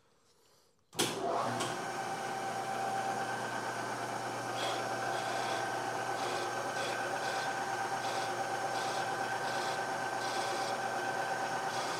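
Bridgeport-style knee mill's spindle starting suddenly about a second in and running steadily with a low hum and a steady whine, while a chamfering tool cuts the top of a core-plug hole in an aluminium LS3 engine block, with short, higher-pitched cutting noises recurring from about four seconds in.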